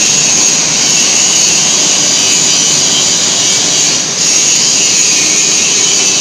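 Steady, loud industrial machinery noise: an unbroken high hiss with no rhythm or breaks.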